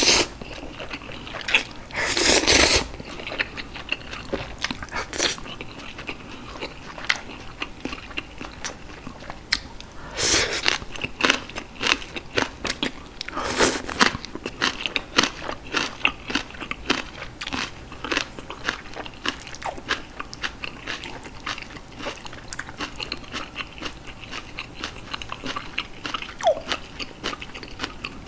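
Close-miked eating of green onion kimchi and Jjapaghetti black-bean noodles: crunching and chewing with many small wet mouth clicks, and a few louder bursts about two, ten and thirteen seconds in.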